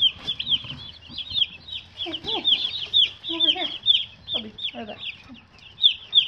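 Day-old meat chicks peeping continuously, a rapid stream of short, high cheeps that slide downward in pitch.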